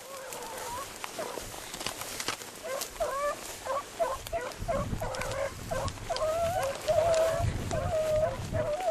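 Beagles baying on a rabbit trail: several drawn-out, wavering hound bawls overlapping and growing louder. Low thumps and rustling from walking through tall grass run underneath.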